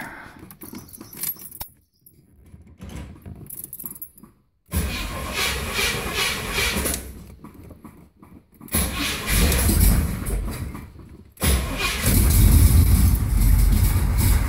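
1969 Corvette Stingray V8 being cold-started: keys jingle at the ignition, the engine cranks in two spells, the second stopping abruptly, then it catches about twelve seconds in and runs loud and steady.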